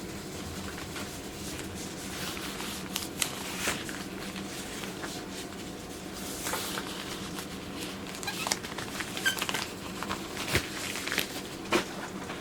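Irregular small clicks and light clinks of hard objects being handled, starting about two seconds in and growing busier toward the end, over a steady low hum.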